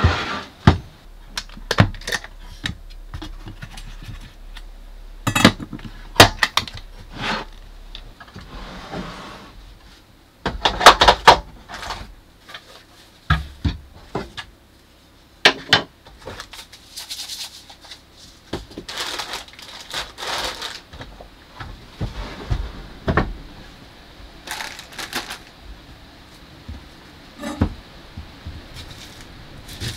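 Food-preparation sounds at a wooden camper galley: scattered knocks and clicks as a drawer is opened and utensils and food are picked up and set down on the wooden counter, with a few brief rustles.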